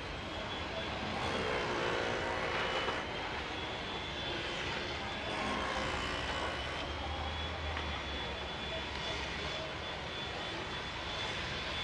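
A steady engine drone under a thin high whine that wavers slightly in pitch.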